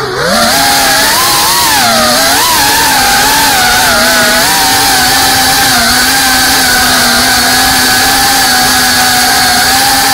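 FPV quadcopter's motors whining in flight. The pitch dips sharply as the throttle is chopped right at the start, wavers up and down for about two seconds, then holds at a steady whine.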